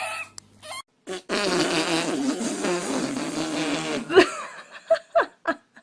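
A long, drawn-out fart lasting nearly three seconds, beginning about a second in, followed by a few short pitched vocal sounds. Just before it, the end of a baby's crying cuts off.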